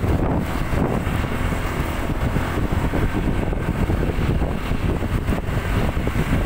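Wind rumbling on a phone microphone while riding on a motorcycle, mixed with the road and engine noise of the moving bike.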